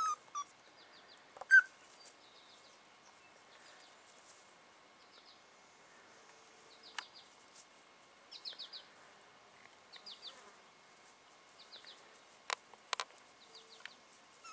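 An American Eskimo Dog puppy gives one short, high whimper about a second and a half in. After that it is quiet, apart from faint, repeated high bird chirps and a few sharp clicks.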